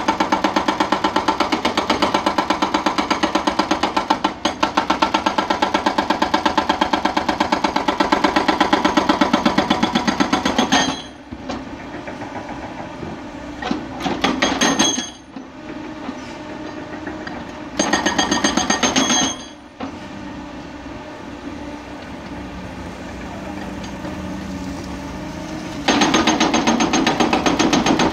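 Hydraulic breaker on a Hyundai crawler excavator hammering rock in a rapid, steady rattle of blows. It stops about ten seconds in, gives two short bursts, and leaves the excavator's diesel engine running on its own before the hammering starts again near the end.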